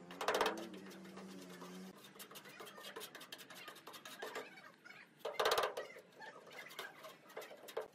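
Metal putty knife scraping and spreading white body filler on a rusty steel car bonnet and its plastic mixing sheet: a run of short scrapes and clicks, with two louder scrapes about half a second in and five and a half seconds in.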